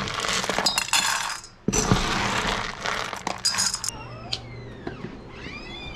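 Dry dog kibble poured into a metal bowl in two pours, a rattling rush with small clinks. Near the end come a few fainter high, falling chirps.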